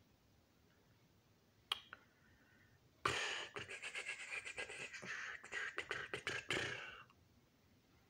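A man making noises with his mouth: a single click a little under two seconds in, then about four seconds of hissing, crackling mouth sounds like beatboxed sound effects.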